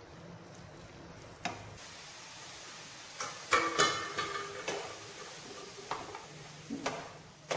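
Wooden spatula stirring and scraping soft, steamed grated bottle gourd around a nonstick frying pan: a series of short scrapes and knocks, busiest and loudest about halfway through, over a faint steady sizzle from the pan.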